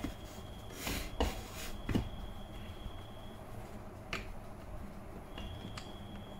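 Light plastic clicks and knocks as a small display monitor is handled and fitted onto its plastic mounting bracket, four or so sharp clicks spread over a few seconds.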